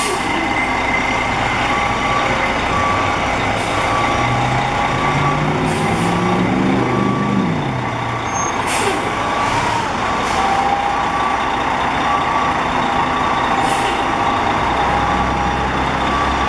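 Fire engine reversing: its diesel engine running and revving up a few seconds in before settling, under a backup alarm beeping steadily, with several short air-brake hisses.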